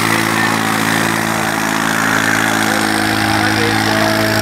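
New Holland 3630 TX tractor's three-cylinder diesel engine running steadily at raised revs, hitched to two disc harrows in tilled soil.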